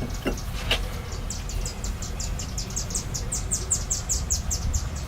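A couple of small metal clicks from an Allen wrench tightening a hex cap screw, then a high, even chirping trill outdoors, about seven chirps a second, from about a second in until near the end, over a low rumble.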